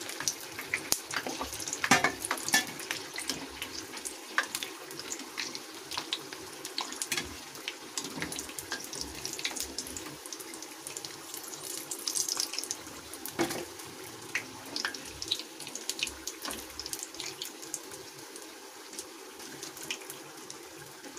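Samosas deep-frying in hot oil: a steady sizzle dotted with small crackles and pops, with a few sharper metallic clicks as a slotted spoon lifts them out of the pan.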